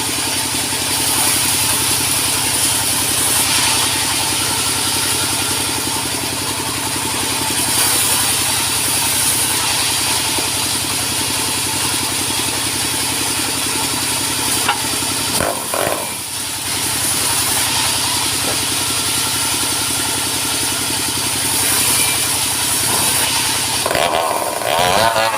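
Sawmill machinery running steadily: an engine hum with a high hiss over it, briefly dipping about fifteen seconds in.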